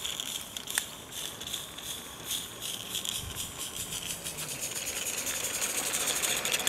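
Small live-steam garden-railway locomotive chuffing in a fast, even beat, getting louder as it draws close near the end.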